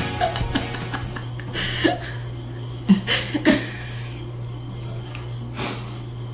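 A steady low electrical hum with a few short breaths and chuckles from people.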